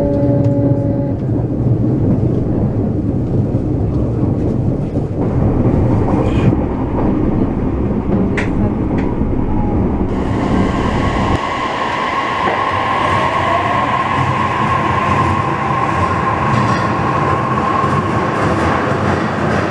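Narita Express electric train running: inside the carriage, a steady low rumble with wheel clicks over the rail joints. About ten seconds in the sound changes to a train moving along an underground station platform, with a steady high tone over the wheel noise.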